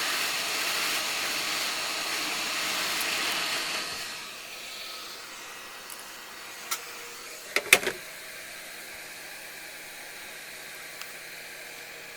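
Hot air rework station blowing a steady hiss onto a circuit board to desolder a BGA chip. About four seconds in it drops to a quieter steady hiss, and a few sharp clicks come near the eight-second mark.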